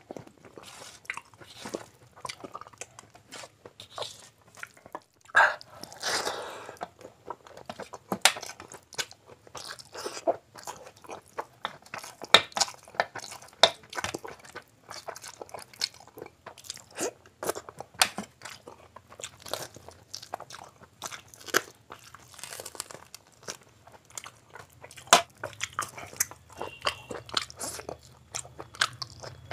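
Close-up sounds of a person eating chicken and mutton biryani with curry by hand: steady wet chewing, lip smacks and crunching, with fingers working through the rice and curry. The loudest crunch comes about five and a half seconds in.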